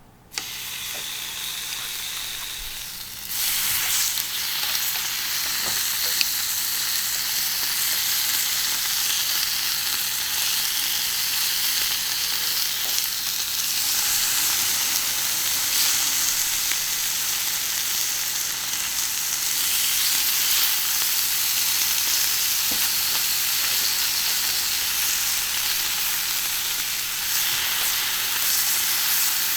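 Beef tongue and skirt steak (harami) sizzling on a hot iron griddle. The sizzle starts suddenly just after the start and grows louder a little over three seconds in, then keeps up a steady frying hiss.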